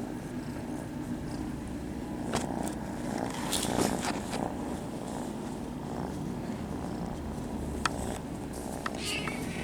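Kittens purring, a steady low rumble, with a few short clicks along the way.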